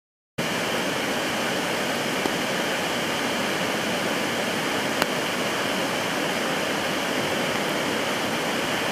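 Steady rushing of the upper Asón's waterfalls and river running high in flood, starting a moment in, with a single click about five seconds in.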